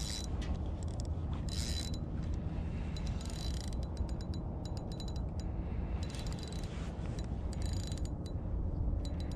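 Spinning reel clicking and whirring in runs of rapid ticks as line is wound in against a hooked fish, over a steady low rumble.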